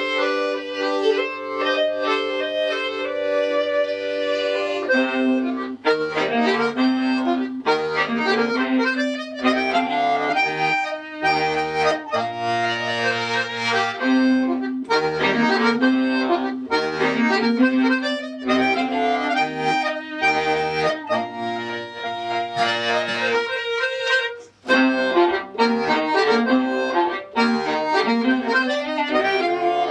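Viola and accordion playing an instrumental duet. The first few seconds are long held chords, then the music moves into a quicker tune, with a brief pause about five seconds before the end.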